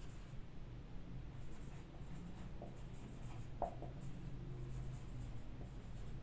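Faint scratching strokes of a marker writing on a whiteboard, with a light tap about three and a half seconds in, over a steady low hum.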